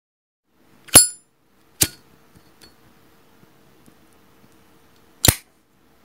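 Sharp metallic clicks of a Zippo lighter's hinged lid: a bright click with a ringing ping about a second in, a second click just after, and a last sharp clack about four seconds later.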